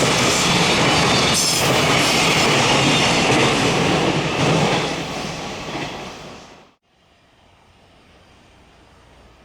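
Freight train passing close by, the loud steady noise of its wheels on the rails. The noise fades over a couple of seconds and then cuts off suddenly about seven seconds in, leaving a faint steady background.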